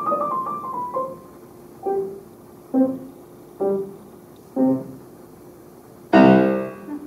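Steinway grand piano closing a piece: a quick run of notes that settles about a second in, then four separate chords about a second apart, and a loud final chord near the end, left to ring.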